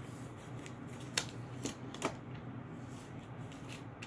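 A few short, sharp clicks, the loudest about a second in and again near the two-second mark, over a steady low hum.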